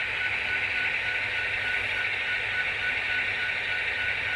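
Model freight train rolling along the layout track: a steady whirring hiss with a faint high hum in it.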